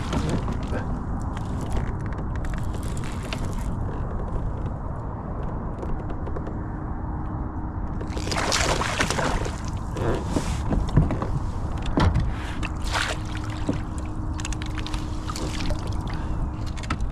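Water sloshing and splashing around a kayak over a steady low rumble, with a few louder splashes about halfway through.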